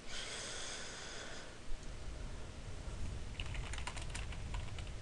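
A steady tone for about the first second and a half, then a quick run of computer keyboard keystrokes about three and a half seconds in.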